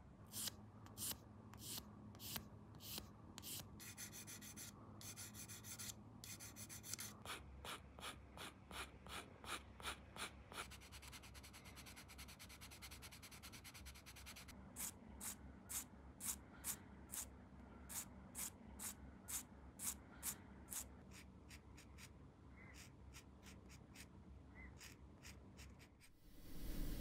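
Short rubbing strokes of a hand tool on a plastic model-kit part, about two to three a second, with a few seconds of quicker, continuous scrubbing in the middle. The strokes grow fainter near the end.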